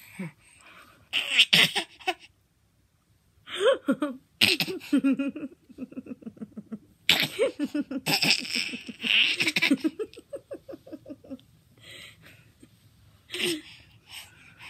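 A woman and a baby laughing together in several bouts of quick, breathy ha-ha pulses, with short gaps between the bouts.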